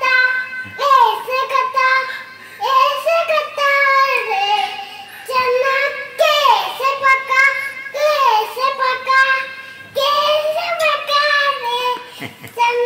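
A young girl singing a Hindi children's song in a high, clear voice, in short repeated phrases with brief pauses between them.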